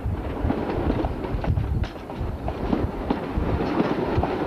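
Narrow-gauge railway passenger coaches rolling past and away, their wheels clicking and clattering irregularly over rail joints and pointwork over a steady low rumble.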